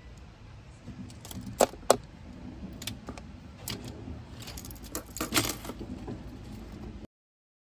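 Muji plastic gel pens picked up and handled on a desk: a string of sharp plastic clicks and taps, the loudest two in quick succession about a second and a half in, with another cluster around five seconds in. The sound cuts off abruptly near the end.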